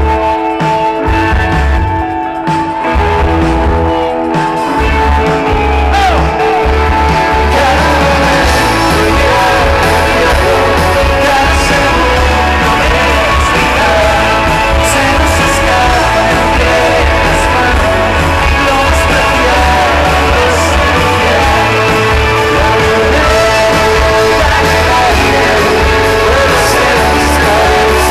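Live indie rock band playing loudly at a festival: held guitar chords at first, then the full band comes in about seven seconds in, with singing over it.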